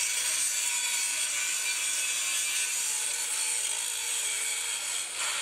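Angle grinder grinding the steel of an excavator bucket, a steady hissing grind with a faint motor whine underneath.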